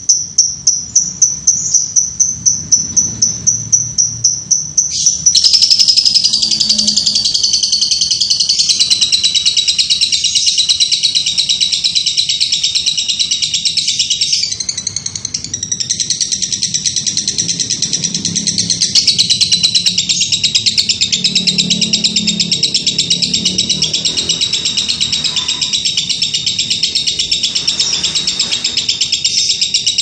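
Fischer's lovebird singing: a rapid run of evenly repeated high chirps for about five seconds, then a long unbroken high-pitched chatter that runs on, faltering only briefly about halfway.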